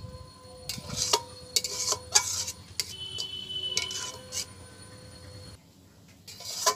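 Long metal spoon stirring and scraping a boiling palm-pulp and milk mixture in a metal kadai, a string of scrapes and clinks against the pan, several of them ringing briefly.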